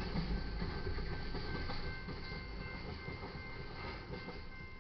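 The last cars of an empty crude oil freight train rolling past over a grade crossing, the wheel rumble and clatter fading away as the tail end clears. A crossing warning bell rings steadily with it, its tones standing out as the train noise dies down.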